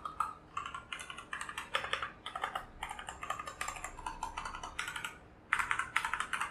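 Keys of a Keychron K4 mechanical keyboard with brown switches being typed on: quick runs of clacking keystrokes, with a short lull near the end before a few more presses.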